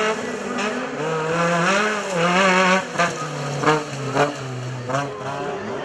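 Off-road race vehicle's engine revving, its pitch rising and falling with the throttle, with several sharp knocks in the second half.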